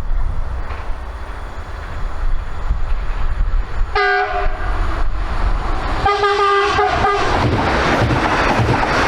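Train horn sounding two short blasts about four and six seconds in, as a train approaches. The noise of the passing train then swells and grows loud near the end.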